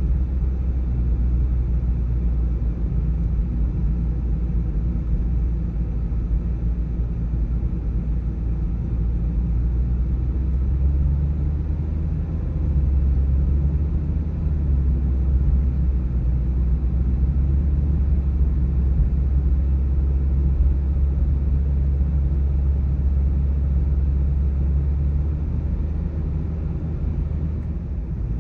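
Steady low rumble of a car driving along the road: tyre and engine noise.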